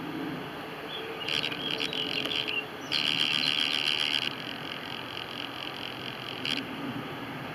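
Steady distant jet roar of an Airbus A380 rolling along the runway, with rapid high-pitched chirping in two bursts about a second and three seconds in, and a short one near the end.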